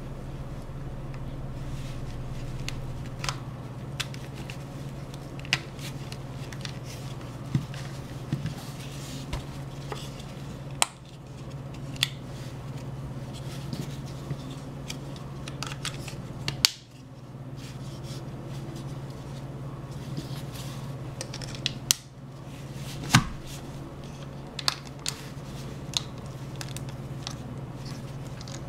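Plastic clicks and snaps as a rubberized snap-on case is handled and pressed onto a T-Mobile G1 phone, with a few sharp louder snaps, over a steady low hum.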